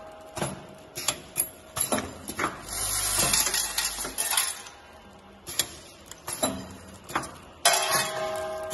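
Automatic packing machine with vibratory bowl feeders running, metal parts clinking and clicking at irregular intervals as they are handled and fed. There is a longer rushing noise about three seconds in, and a steady hum starts near the end.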